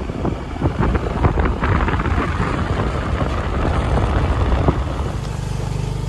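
Wind noise with rattling and knocking, as from a moving vehicle; about five seconds in it settles into a steady low engine hum.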